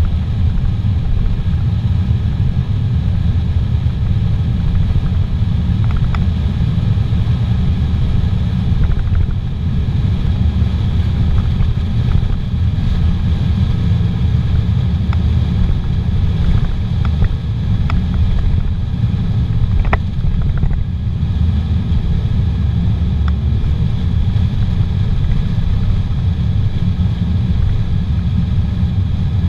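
A car's engine and tyre road noise as a steady low rumble, heard from inside the cabin while driving along a paved highway.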